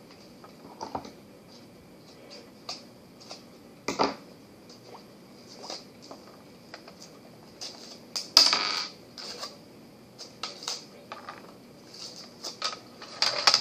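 Hands handling small plastic and paper packaging on a tabletop: scattered small clicks and taps, with a louder crinkling rustle about eight seconds in and another near the end.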